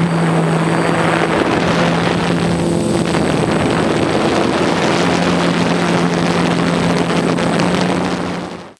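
Multirotor drone's electric motors and propellers running steadily with a constant hum, heard from the onboard camera with some wind noise on the microphone. The sound cuts off abruptly near the end.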